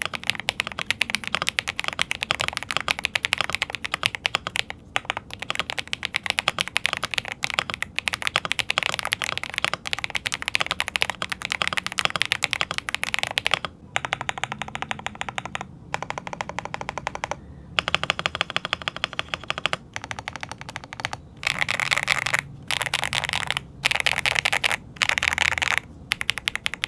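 Dark Alien K820 mechanical keyboard being typed on quickly, a dense, continuous run of key clacks. About halfway through the typing breaks into shorter bursts with brief pauses between them.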